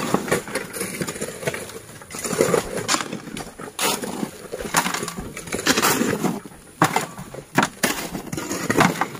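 Steel shovels and hoes scraping and scooping sand and soil, in a run of irregular scrapes and knocks.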